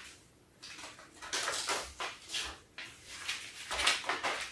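Scissors snipping through folded paper, a string of short, irregular cuts with some paper rustling, starting about half a second in.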